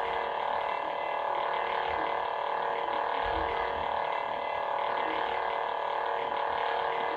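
Adawlert lightsaber's idle blade hum playing steadily from its built-in speaker, a level electronic drone made of several fixed tones, while the saber sits in colour-cycle mode.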